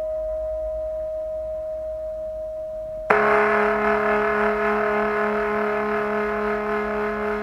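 A singing bowl's single ringing tone fades slowly. About three seconds in it stops, and a lower-pitched singing bowl is struck and rings on, fuller, with several overtones.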